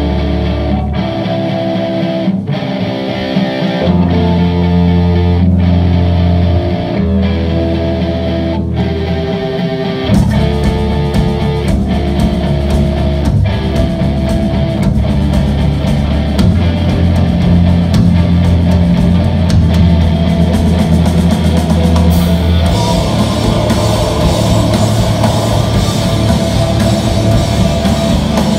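A rock band playing live on electric guitars, bass guitar and drums. The drums and cymbals come in fuller about ten seconds in, and the sound grows brighter and denser past the two-thirds mark.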